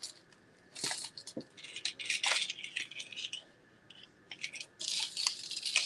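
Beaded costume-jewelry necklaces and metal chains rattling and clinking as they are handled, in several short bursts with brief pauses.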